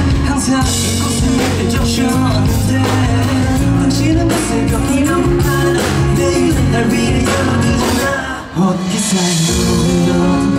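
A rock band playing live, with drums, bass and electric guitar and a sung vocal line; the sound drops for a moment about eight and a half seconds in.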